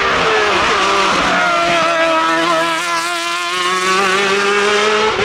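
Hill-climb competition car's engine running at high revs under hard acceleration, its pitch dropping at quick gear changes about half a second and a second in, then holding high and slowly climbing, with another shift near the end.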